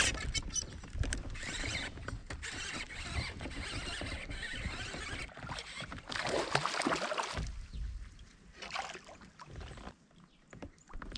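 Water splashing and sloshing around a kayak, with knocks against the hull, while a bass hooked on a topwater lure is fought to the boat. A sharp knock at the start, then the splashing dies down after about seven seconds, with one more short splash near the end.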